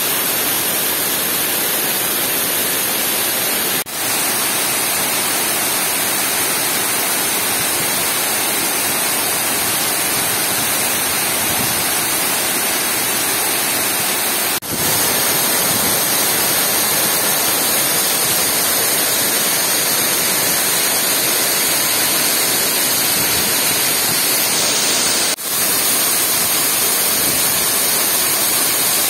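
Water pouring in a white sheet down the concrete face of a dam spillway: a steady, loud rushing, broken by three brief dropouts spread through it.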